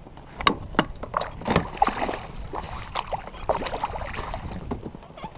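Irregular knocks and clatter of gear against the hull of a small rowboat, a dozen or so sharp hits over a few seconds.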